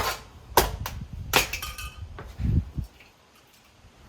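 Sharp plastic clicks and snaps as a small cooling fan is pried at and its blades broken off: three in the first second and a half, then a dull thump about two and a half seconds in.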